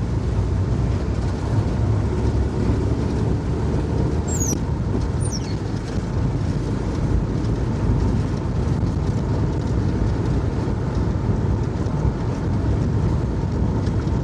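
Campervan driving along a narrow road, heard from inside the cab: a steady rumble of engine and tyre noise. Two brief high chirps cut through about four and five seconds in.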